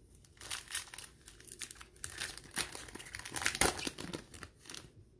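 Wrapper of a 2020 Topps Gold Label baseball card pack being torn open and crinkled by hand. Irregular crackling throughout, loudest about three and a half seconds in.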